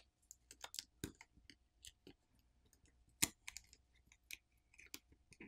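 Faint, scattered crackles and small clicks of a thin adhesive-backed graphite heat-spreading film being peeled off a smartphone's inner plastic cover, with one slightly sharper click about three seconds in.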